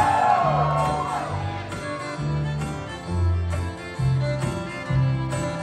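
Live acoustic string band playing an instrumental passage: fiddle, strummed acoustic guitar and plucked upright bass notes.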